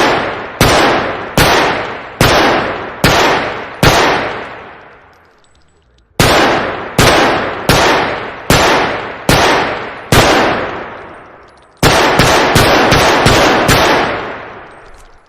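Glock 17 9 mm pistol firing with a long echoing tail on every shot. Single shots come at a steady pace of a little more than one a second, first six, then after a short pause six more. Near the end comes a quick string of about seven shots, roughly three a second.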